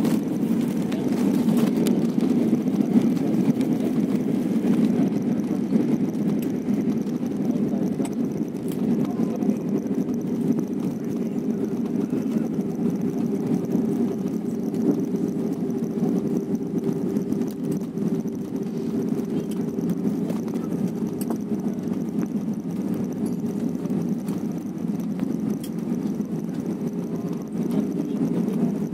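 Airliner cabin noise over the wing during landing: a steady low rush of jet engines and airflow as the plane comes down onto the runway and rolls out with its spoilers raised, loudest in the first few seconds and easing a little after.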